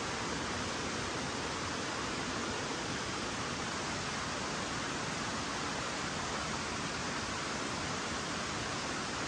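A river running: a steady, even rush of flowing water.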